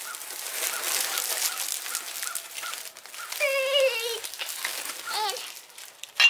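Woven plastic sack rustling and crinkling as a motorcycle engine is handled inside it, with faint regular ticks about two or three a second. About three and a half seconds in comes a short wavering high-pitched call, the loudest sound, then a weaker one about a second later, and a sharp click near the end.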